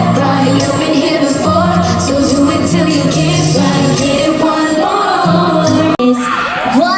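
Live pop concert music from the audience: loud amplified music with a heavy bass line and singing. About six seconds in the music cuts off abruptly and a crowd starts screaming and cheering.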